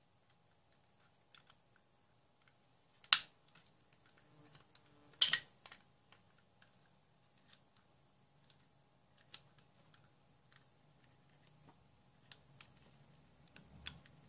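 Small plastic clicks and taps from a solar LED light's plastic housing as it is handled and its parts are fitted together, with two sharp, louder clicks about three and five seconds in.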